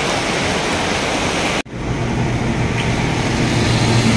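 Heavy rain pouring down, an even loud hiss. About a second and a half in, the sound cuts off abruptly and comes back with a truck's engine idling as a steady low hum under the rain.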